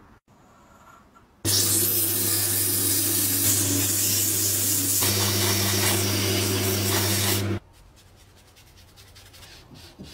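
Wood lathe running while sandpaper is held against a spinning wooden handle: a steady motor hum under a loud sanding hiss that starts abruptly about a second and a half in and stops suddenly about six seconds later.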